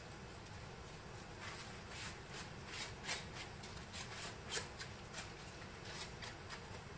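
Gloved hands rubbing a cloth over a 3D-printed plastic skull, wiping off excess dark paint wash: a series of short, irregular rubbing and rustling strokes, starting about a second and a half in and stopping shortly before the end.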